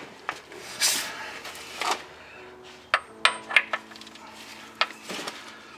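Sharp metal clinks of a socket and extension being fitted onto and worked against a connecting-rod cap nut of a Detroit Diesel 8V92, several in quick succession about three seconds in and one more near the end, each leaving a brief metallic ring. Two short rustles come before them, about one and two seconds in.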